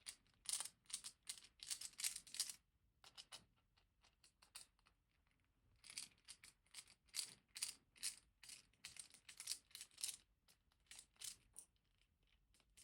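Faint, quick metallic clicks and ticks of a small screwdriver backing the screws out of a lock's back plate, in two dense runs with a pause between.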